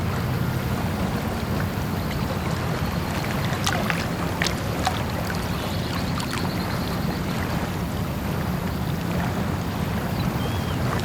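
Quiet small-harbour ambience: a steady wash of water and wind over a low, even hum, with a few sharp clicks and knocks about four to five seconds in.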